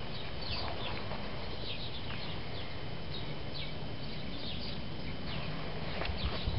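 Small birds chirping, many short downward-sliding notes scattered throughout, over a steady low rumble.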